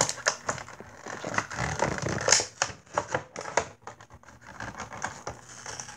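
Crinkling, scratching and clicking of a clear plastic toy package being handled and worked open by hand close to the microphone, in irregular bursts.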